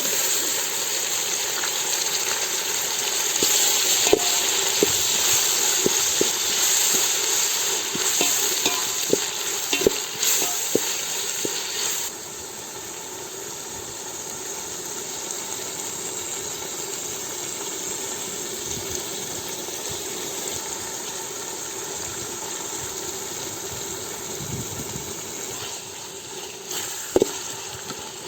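Tomatoes frying in hot oil with onions, ginger and garlic in a cooking pot, sizzling steadily while a ladle stirs and knocks against the pot. The sizzle is loud for about the first twelve seconds, then drops suddenly to a softer steady sizzle.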